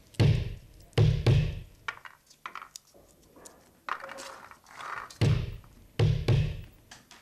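Muffled heavy thuds in a "stumpf… stumpf stumpf" rhythm, one thud then a quick pair, heard twice. Lighter knocks and short rustles come between the two groups.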